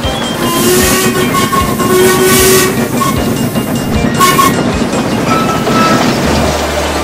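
Sound effect of a locomotive speeding along the rails: wheels clattering over rail joints and points under a loud rushing hiss that surges several times, with short high held tones over it.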